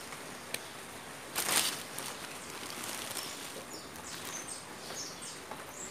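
Steady hiss of rain falling. About a second and a half in comes a brief, loud rustle of hands and a trowel working potting soil, and in the second half a few short, high chirps.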